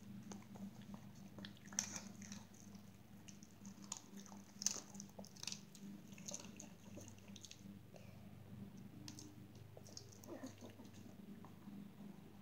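Chihuahua chewing and biting treats: irregular wet chewing with sharp crunches, two of them louder, about two seconds in and near the middle. A faint steady low hum runs underneath.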